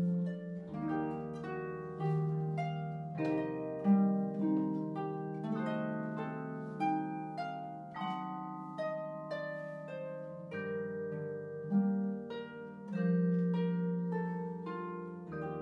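Concert harp playing a slow melody over sustained low notes, in duet with a mallet keyboard percussion instrument, with new plucked notes every half second to a second, each ringing on.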